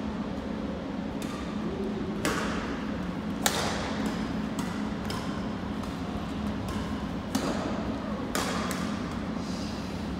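Badminton rackets striking a shuttlecock back and forth in a rally: about ten sharp hits, roughly one a second, each ringing briefly off the gym walls. A steady low hum runs underneath.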